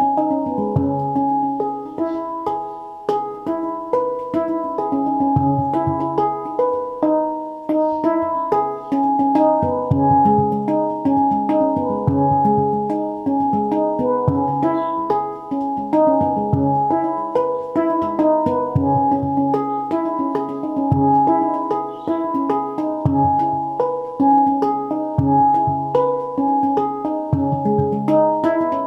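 A handpan of un-nitrided steel played with the hands: a steady, unbroken run of struck notes, each ringing on into the next, with a deeper note sounding now and then beneath the higher ones.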